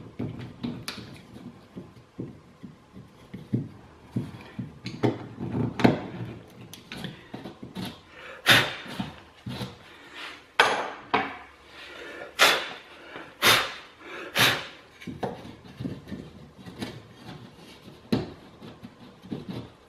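Hands working with a scrap of plasterboard and hand tools at a wall: scattered knocks and clatters, and halfway through about five loud, short scraping strokes.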